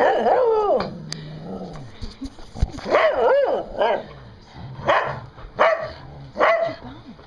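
Australian Cattle Dog mix (blue heeler) barking in about six drawn-out, wavering calls, the first a long falling one. She is guarding her new Nylabone from the other dogs.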